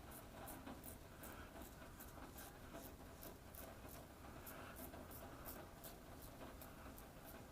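Rockwell 6S safety razor with a Croma Diamant blade scraping through two days of stubble in short, quick strokes, about three a second, faint and scratchy.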